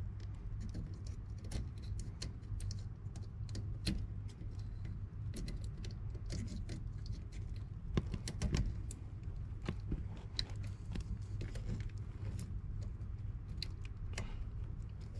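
Irregular small clicks and light metallic rattles of wires and terminals being handled inside an air handler's electrical compartment while a heat kit's power and ground wires are connected, over a steady low hum.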